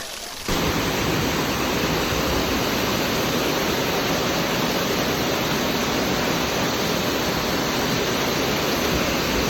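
Waterfall rushing close by, a steady, even wash of falling water that cuts in suddenly about half a second in.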